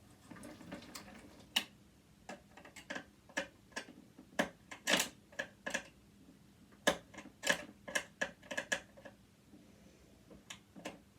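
Screwdriver turning a stubborn screw in a metal sewing machine, with tool and parts clicking and tapping against the metal: a string of irregular sharp clicks, after a soft rustle at the start.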